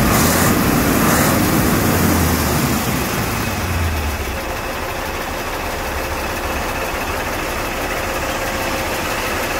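Mercedes-Benz 2632 K tipper truck's diesel engine idling steadily, with a deep low hum that eases a little about four seconds in.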